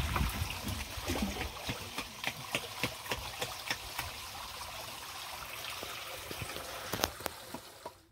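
Water trickling and splashing, with many small irregular splashes and clicks over a steady low rumble; it fades out just before the end.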